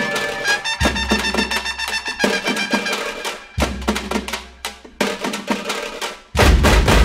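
Background music with fast, dense drum strokes over a pitched melody, and deep bass hits about a second in, midway, and loudest near the end.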